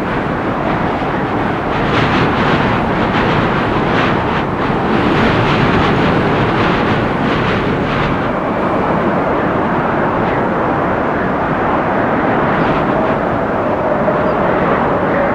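Strong windstorm blowing steadily through forest trees, a continuous loud rushing that swells slightly about two seconds in, with gusts of leaf and branch rustle over it.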